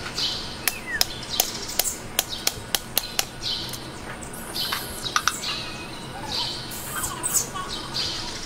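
Birds chirping again and again in short high calls, with a quick run of about a dozen sharp clicks during the first three seconds.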